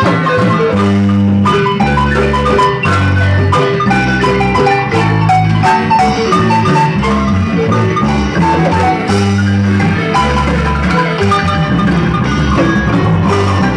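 Large wooden marimba played by several players side by side, amplified through stage speakers: quick struck melody notes over sustained deep bass notes.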